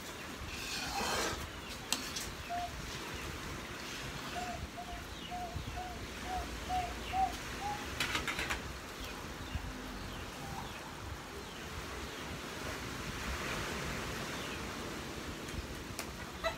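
Thick sweet jackfruit and glutinous rice mixture bubbling in a pan on the stove, with two brief scrapes about a second in and about eight seconds in. A bird in the background calls a quick run of about eight short, slightly rising notes a few seconds in.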